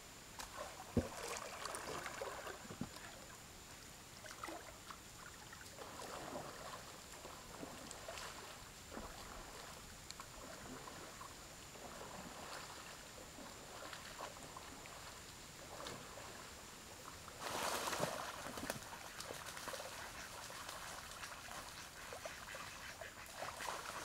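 Water splashing and lapping as a wooden dugout canoe is boarded and paddled on a river, with scattered light knocks and a louder rush of splashing about seventeen seconds in. A thin, steady high tone sits underneath throughout.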